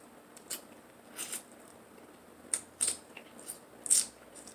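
Quiet eating sounds: scattered short clicks and smacks from handling and eating seafood-boil food, about six in a few seconds.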